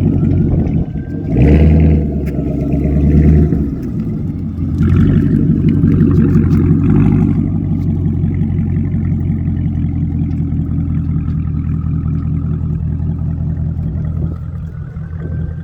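An engine running steadily, swelling louder about a second in and again around five seconds in. A faint whine rises and falls near the start and near the end.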